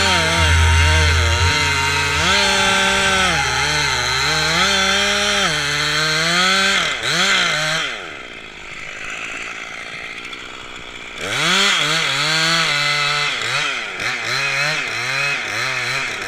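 Chainsaw running and revving up and down, its pitch sagging and recovering as it works through wood. About eight seconds in it drops back to a lower idle for roughly three seconds, then revs up again.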